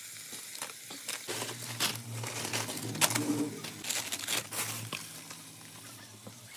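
Plastic Maggi noodle wrappers crinkling and crackling irregularly as they are handled and opened, thinning out near the end.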